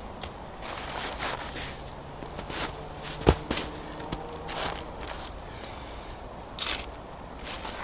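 Irregular crunching and scraping in snow, with one sharp knock a little over three seconds in.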